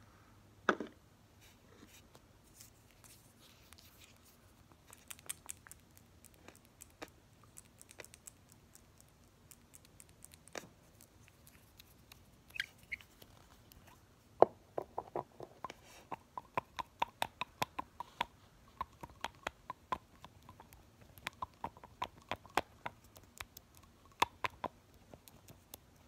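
Nail polish bottles handled close to the microphone: scattered sharp clicks and taps of glass bottles and plastic caps, then from about halfway a quick, even run of clicks from the polish being pumped and the cap worked.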